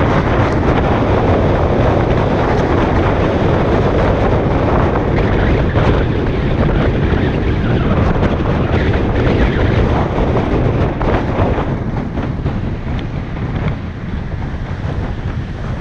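Wind rushing and buffeting over the microphone of a camera on a moving vehicle. It is loud and steady, then eases somewhat in the last few seconds as the ride slows.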